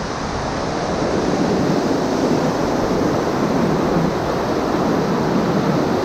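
Fast-flowing, silt-laden glacial river rushing beneath a log footbridge: a steady, loud rush of water, growing a little louder about a second in.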